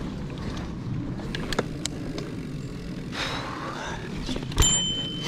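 Mountain bike rolling over a dirt trail: a steady low rumble with scattered rattles and clicks from the bike. Near the end a sharp knock sets the handlebar bell ringing, a steady high ring that keeps sounding because the bell is broken and doesn't turn off.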